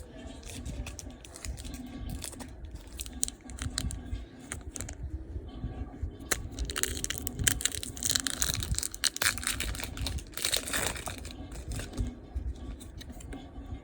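Pokémon booster pack's foil wrapper being handled, crinkled and torn open, with scattered crackles throughout and a denser, louder rustle from about seven to eleven seconds in.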